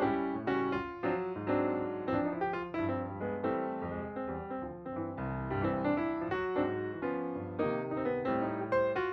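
Background music: solo piano playing a light, steady run of notes.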